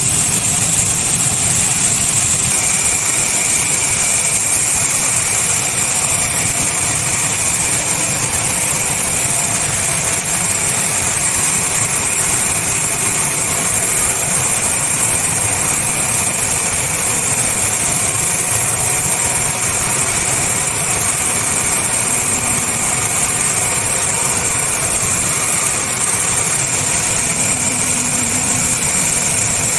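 Sawmill machinery running steadily: a continuous drone with a strong high-pitched hiss that does not change.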